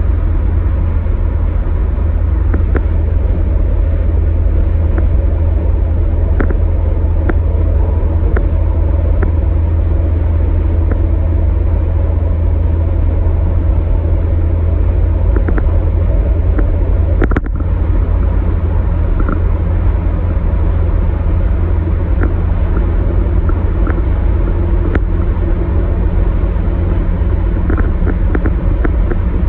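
Steady low rumble of a car's road and engine noise at highway speed, heard from inside the car. Faint scattered ticks run through it, and there is a brief dropout a little past halfway.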